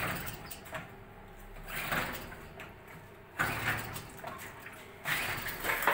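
Two-stroke ALLFA CG outboard motor being pull-started: about four rasping pulls of the recoil starter cord, roughly every second and a half to two seconds, as the engine cranks without catching.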